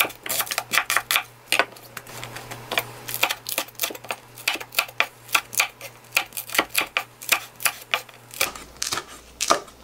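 Kitchen knife chopping on a wooden cutting board: a quick, uneven run of sharp knocks, a few a second, as onion and then small green and red chili peppers are sliced.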